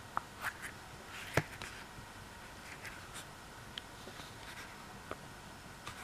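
Faint rubbing and handling of a soft silicone cover being worked onto a Nissan smart key fob, with scattered light clicks of fingers on the plastic fob. The sharpest click comes about a second and a half in.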